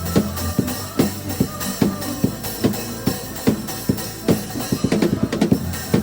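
Drum kit playing a steady beat, kick drum and snare hitting about two or three times a second, along with a song's backing music that carries a steady bass line.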